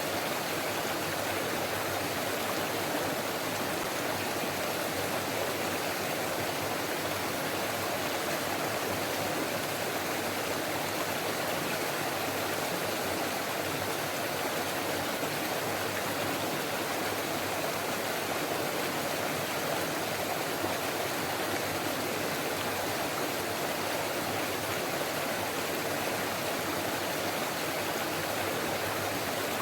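Stream water flowing steadily, an even, unbroken rush that holds the same level throughout.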